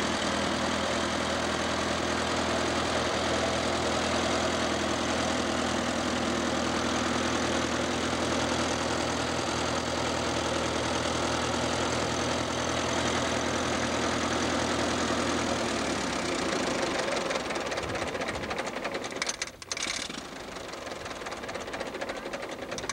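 Four-cylinder engine of a 1936 Allis-Chalmers tractor, just started, running steadily, then slowing and stopping about sixteen seconds in.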